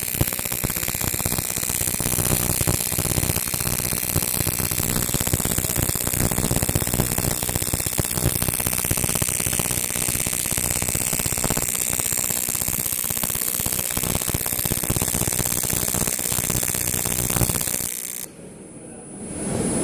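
TIG welding arc on aluminium, buzzing steadily with the AC hum typical of aluminium TIG welding, then cutting off about 18 seconds in as the arc is broken.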